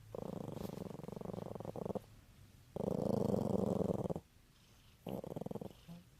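A domestic cat purring in three bursts, each a rapid fluttering rumble; the middle one is the longest and loudest.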